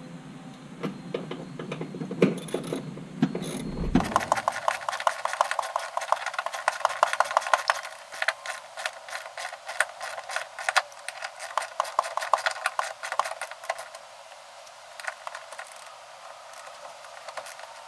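Hand ratchet clicking rapidly for about ten seconds, starting about four seconds in, as the bolt holding the barrier net's mounting bracket at the seat belt anchor is run in. Before it, small metal hardware is handled with a few scattered clicks.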